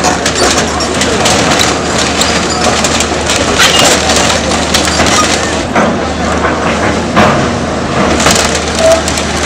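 XCMG crawler excavator demolishing houses: wood and sheet metal cracking, splintering and being crushed under the machine in many sharp knocks, with its engine running underneath.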